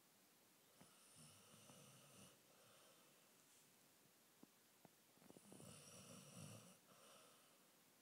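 A sleeping basset hound snoring, two long snoring breaths about four seconds apart, the second one louder.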